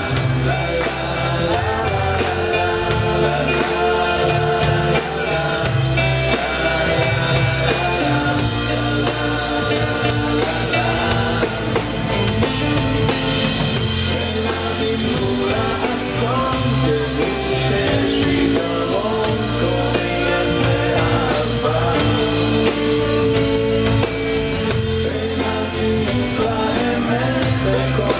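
A live band playing a song with singing: a drum kit keeping a steady beat under sustained bass and other instruments.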